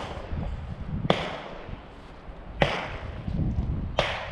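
Three sharp cracks about a second and a half apart, each with a short echoing tail: gunshots from other shooters on the range. Faint footsteps on sandy grass run beneath them.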